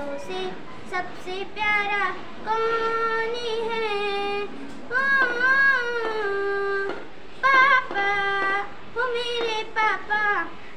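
A young girl singing solo without accompaniment, holding long notes that bend and slide in pitch, with short breaks between phrases.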